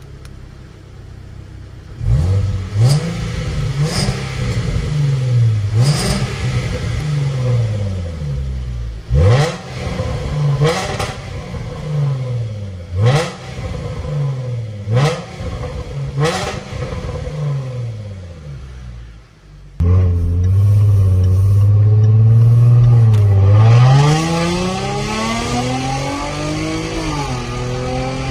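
Range Rover Velar P380's 3.0-litre supercharged V6 through a Fi Exhaust valvetronic cat-back exhaust. It idles quietly, then is blipped about eight times, each rev rising sharply and falling back. Near the end it holds a steady higher note, then pulls away under acceleration, the pitch climbing steadily with a break for a gear change.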